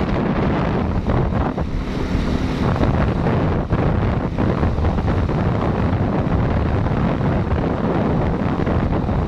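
Wind buffeting the microphone of a camera moving along a road, a steady loud rumbling noise with no pauses.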